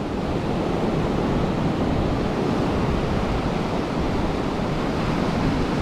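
Steady rush of sea surf breaking and washing on a beach, heard from among the waves, with wind rumbling on the microphone.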